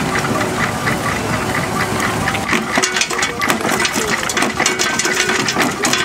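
Threshing machine running with a steady mechanical clatter, then a belt-driven jaw stone crusher crunching stone, with a quick run of sharp cracks from about halfway.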